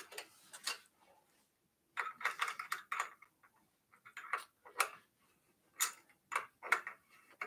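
Irregular sharp metallic clicks and clinks of a small flat wrench working the front axle nuts of an ebike's fat-tyre front wheel, tightening the wheel into the fork.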